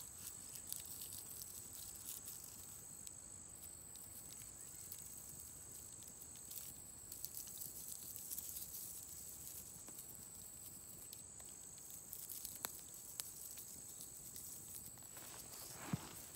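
Dry wheat heads crackling and rustling as they are crushed and rubbed between the hands to free the grain from the husks, with a couple of sharper ticks near the end.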